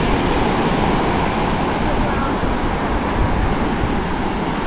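Steady wind rumbling on the microphone over surf breaking and washing up the beach.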